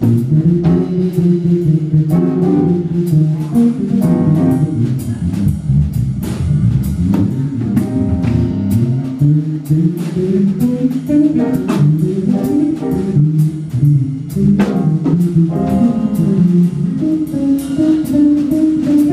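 A live band playing a jazzy number, with guitar, keyboard and drums.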